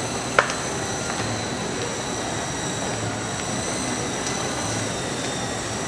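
Small electric coaxial RC helicopters hovering: a steady high-pitched whine from their motors and rotors over a steady hiss, with one sharp click about half a second in.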